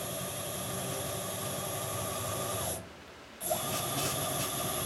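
Stepper motor driving the Z-axis ball screw of a CNC-converted PM-25MV (BF20-type) mill, a steady whine as the head traverses under power. It stops about three seconds in and starts again half a second later, now with a light rattling from the guard over the X-axis DRO, not from the axis itself.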